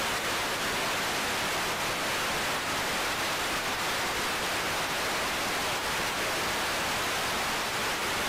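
Steady static hiss, even across the whole range from low rumble to high hiss, with no tone or rhythm in it. It cuts off abruptly at the very end.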